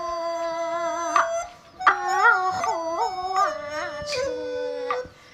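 Kunqu opera music: a high voice holds and bends long, wavering melismatic notes over a steady instrumental line, with a few sharp percussion strikes. The sound drops out briefly about one and a half seconds in and again near the end.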